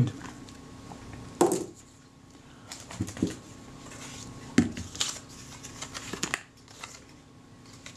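Handling noise from a metal Kodak Retina Reflex III camera body being turned over and moved on a work mat, with its paper tag rustling: a few scattered clicks and knocks, the clearest about one and a half seconds in and around four and a half seconds in.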